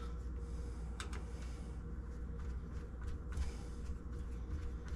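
Faint scattered clicks of a deadbolt mounting screw being turned and worked around until it catches its thread in the exterior half of the lock, over a steady low hum.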